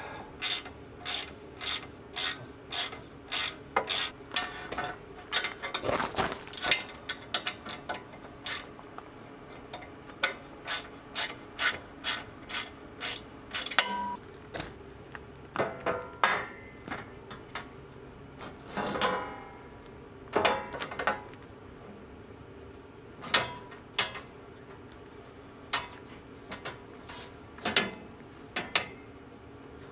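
Hand ratchet wrench clicking as it turns the mounting bolts of a steel tractor grill guard: a steady run of clicks about twice a second, then shorter runs of clicks with pauses between them.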